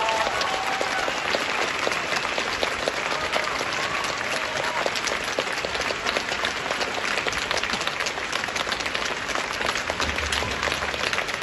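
Large arena audience applauding steadily, a dense clapping that holds at an even level throughout.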